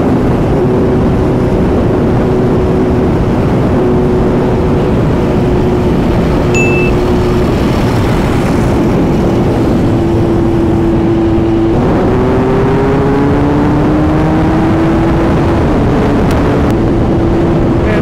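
Kawasaki Z900 inline-four engine running steadily at highway speed. About twelve seconds in, its note drops and then climbs steadily as the bike pulls.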